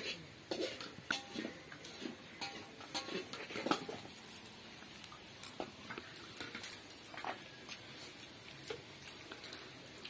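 Fingers mixing rice and small-snail curry on a steel plate and eating it: scattered small clicks, scrapes and clinks at an irregular pace, with short mouth sounds.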